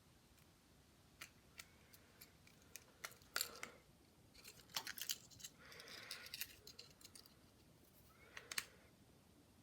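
Faint, scattered clicks and taps of small repair tools and parts being handled, with a short soft scrape near the middle; the sharpest clicks come about a third of the way in and near the end.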